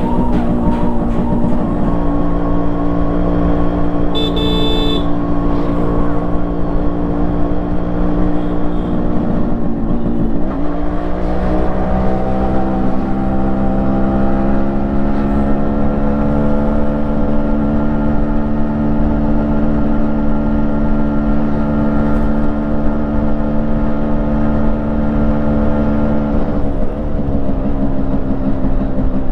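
Yamaha RX135's 132cc single-cylinder two-stroke engine running through its stock exhaust after a rebuild. Its pitch holds steady, dips sharply about ten seconds in, climbs and holds again, then drops near the end. A short high beep sounds about four seconds in.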